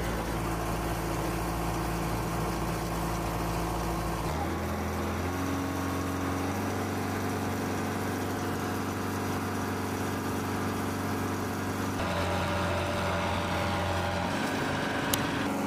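Engine of a mobile aircraft arresting-gear unit idling steadily. Its hum changes abruptly about four and twelve seconds in.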